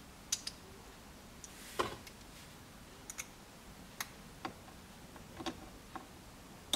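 Faint, irregular small clicks and ticks as small screws are started by hand with a screwdriver into a phone-mount bracket.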